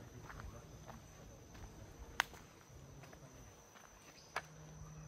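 A steady high insect trill, typical of crickets, with faint footsteps on a leaf-strewn dirt path. Two sharp clicks come about two seconds apart, the first a little past two seconds in.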